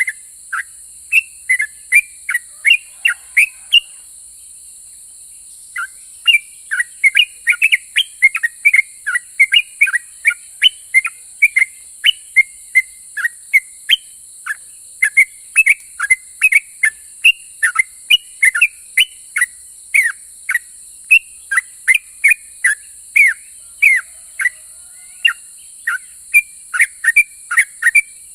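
Yellow-vented bulbul (trucukan) singing in full voice: a fast run of short, falling chirping notes, several a second, with a pause of about two seconds around four seconds in. A steady high hiss and a faint high whine run underneath.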